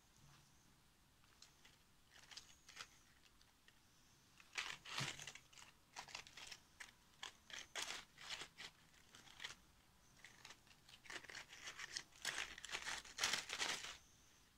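Dry plant decorations crackling and crinkling under the fingers as they are handled and pressed onto a woven base: papery physalis husks, dried leaves and berry sprigs. The crackles come in two clusters, one through the middle and one near the end.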